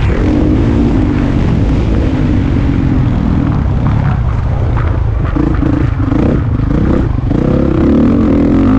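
Motocross bike engine heard from the rider's helmet camera, its pitch rising and falling repeatedly with the throttle through a corner and down a straight, over a heavy low rumble of wind on the microphone.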